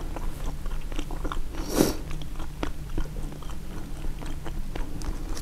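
Close-up mouth sounds of a person biting and chewing a turkey sausage, egg and cheese bagel sandwich: many small wet clicks, with one louder, longer bite-like sound about two seconds in.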